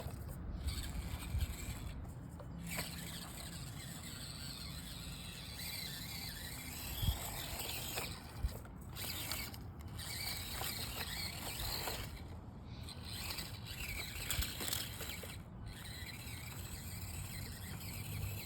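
Axial SCX24 micro RC crawler's small electric motor and geartrain whirring on and off as it crawls, with wind rumbling on the microphone.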